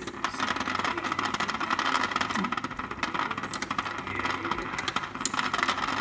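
Hexbug Nano vibrating bug toy buzzing steadily as its little motor shakes it across a plastic arena floor. The buzz comes with a dense rattle of its legs on the plastic and a few sharper clicks where it knocks against the walls or the spinning gate.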